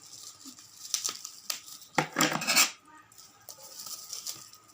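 Bubble wrap and plastic packaging being handled: a few light clicks and clinks, then a loud crinkling rustle lasting well under a second, about two seconds in.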